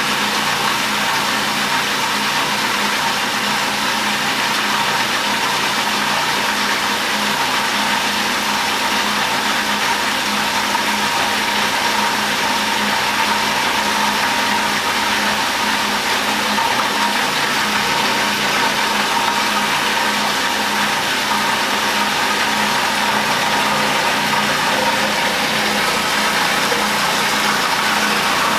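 Food processor motor running steadily at a constant pitch while olive oil is drizzled through the feed tube, emulsifying a chimichurri herb sauce.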